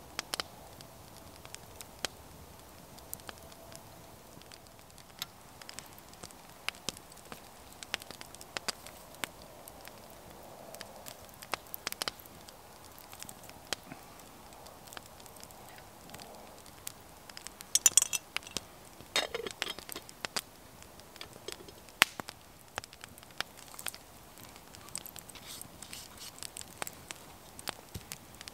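Wood fire of split logs crackling in an open fire bowl, with sharp pops scattered throughout and a brief flurry of louder pops and clicks partway through.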